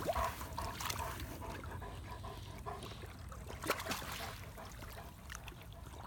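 Harlequin Great Dane puppy blowing bubbles with its muzzle under shallow pond water: a faint bubbling and trickling of water, with a couple of brief splashes a little under four seconds in.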